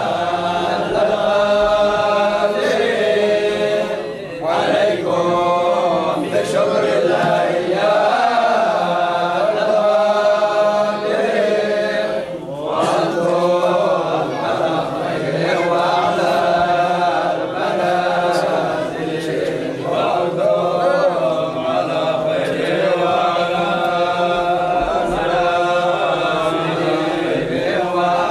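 A group of men's voices chanting dhikr together in a Sufi hadrah, in continuous repeated phrases with brief dips about four and about twelve seconds in.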